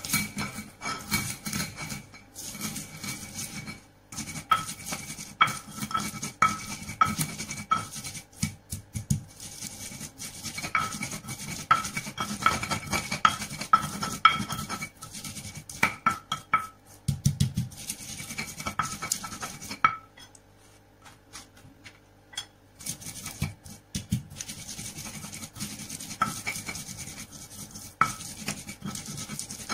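Stone pestle (ulekan) grinding and knocking on a stone mortar (cobek), crushing shallots, garlic and candlenuts into a spice paste: rapid repeated scrapes and clacks of stone on stone, with a pause of about three seconds two-thirds of the way through.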